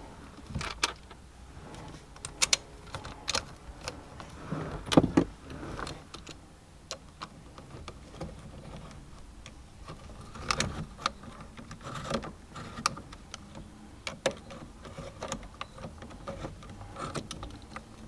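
Screws being started by hand and driven with a hand screwdriver to fix a steering wheel to its quick-release hub: scattered small metallic clicks and taps, the loudest about five seconds in.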